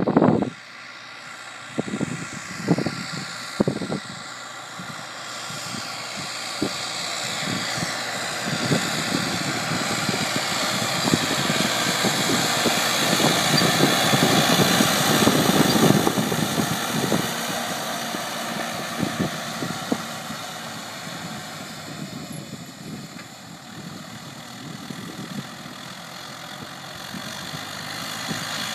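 New Holland farm tractor's diesel engine running steadily under load as it tows a seed drill. It grows louder as the tractor passes close at about the middle, then fades as it pulls away.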